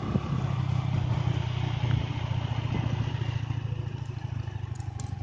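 Engine of a moving road vehicle running steadily at a low hum while driving.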